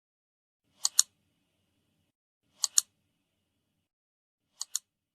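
WhatsApp app sound effect: a crisp double click, played three times with silence between; the third double click is quieter.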